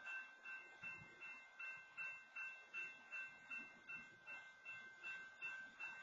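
Railroad crossing warning bell ringing faintly and steadily, about two and a half strikes a second, with the gates down while a stopped freight train blocks the crossing.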